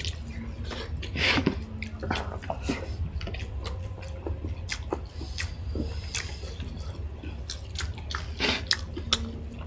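Close-up eating sounds: chewing and biting into food, with many short wet clicks scattered irregularly throughout, over a low steady hum.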